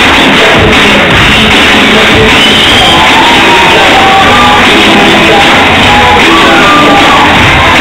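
Loud music with shouting and singing voices over it.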